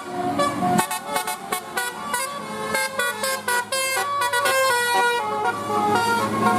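Basuri telolet musical bus horn playing a fast tune: its air-horn trumpets sound short notes that hop up and down in pitch several times a second.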